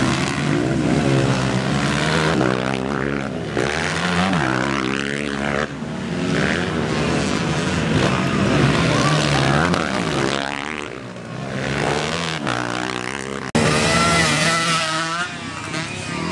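Dirt bike engines revving hard as racing motorcycles pass, the pitch climbing and dropping again and again with throttle and gear changes. The sound changes abruptly twice, about five and a half seconds in and near the end.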